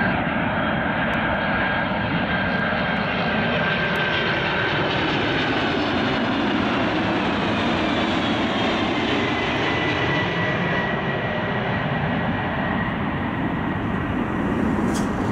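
Jet engines of a four-engined Boeing 747-400 at approach power as it passes low overhead on final approach with the gear down. A steady, loud jet rumble, with a fan whine that drops in pitch as the aircraft goes past and away.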